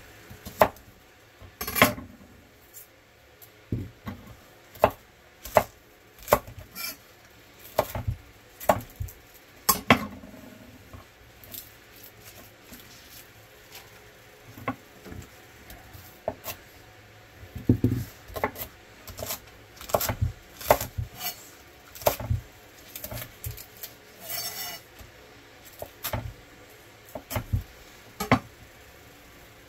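Chef's knife chopping green onions on an end-grain wooden cutting board: sharp knocks of the blade on the wood, irregular and roughly one a second, coming faster in places.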